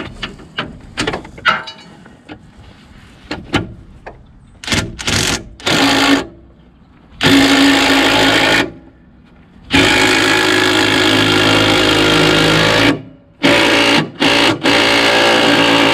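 Cordless impact driver running a bolt into the golf cart's engine mounting plate, fitted with rubber stoppers. It goes in several short bursts, then long runs of rapid hammering, the longest about three seconds. Light clicks and knocks of handling come before.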